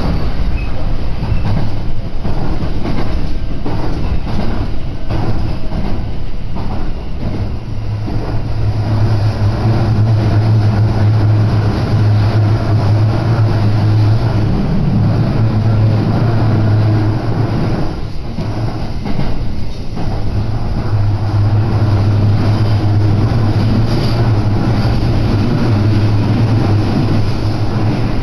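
Electric commuter train running, heard from inside the carriage: a steady rumble under a strong low hum, with a rhythmic clatter of wheels over rail joints in the first several seconds.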